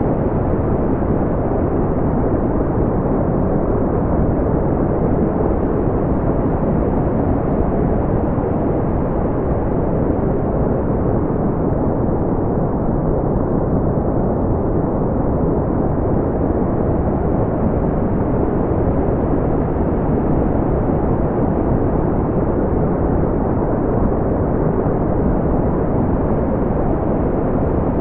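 Steady, deep brown noise: an even, unchanging hiss-like rumble heavy in the low end and rolled off in the highs.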